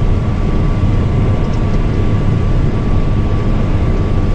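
Combine harvester running while harvesting barley, heard from inside the cab: a steady low drone with a faint, thin whine held over it.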